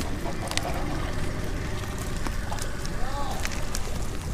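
Steady low outdoor rumble of wind on the microphone, with scattered faint clicks and a short rising-then-falling call about three seconds in.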